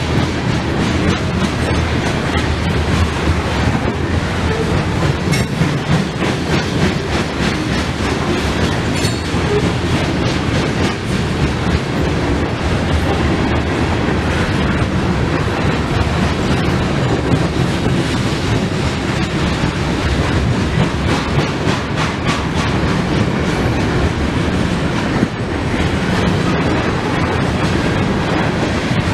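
Coal hopper cars of a freight train rolling past: a loud, steady rumble of steel wheels on the rails, with a clickety-clack of wheels crossing rail joints.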